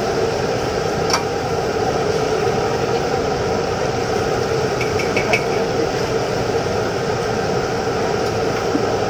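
Chicken pieces deep-frying in a large wok of bubbling oil over a gas burner: a steady sizzle and burner roar, with a sharp click about a second in and a few light clinks around five seconds in.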